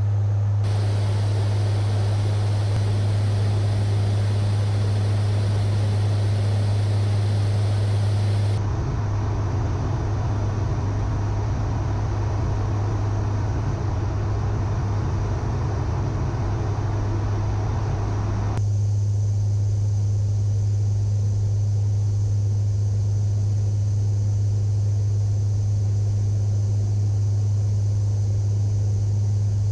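Four-turboprop C-130J Hercules heard from inside the aircraft in flight: a steady propeller drone with a strong low hum over a rush of airflow hiss. The hiss changes abruptly twice, about 9 and 19 seconds in, and the hum wavers slightly in between.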